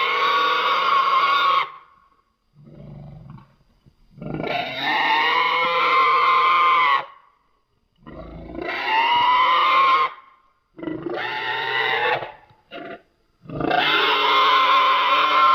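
Designed creature sound effect of an infected Parasaurolophus: a series of loud, harsh, pitched bellowing calls, each lasting two to three seconds with short silent gaps between them, with a quieter short grunt about three seconds in and a brief call shortly before the last long one.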